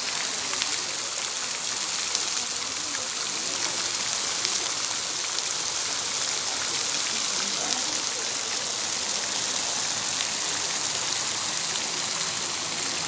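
Fountain jets spraying into a shallow pool: a steady splashing hiss of falling water.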